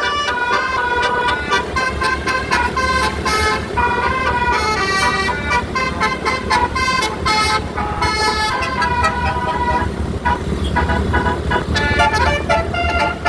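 Bus telolet horn, a set of musical air horns, playing a quick melodic run of notes that change in steps, over the steady low sound of the bus engine running.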